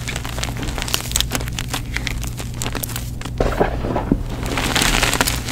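Dyed gym chalk crumbled between the fingers and pressed into a bed of loose chalk powder: close, dense crackling and crunching with many small clicks, and a few louder crunches past the middle.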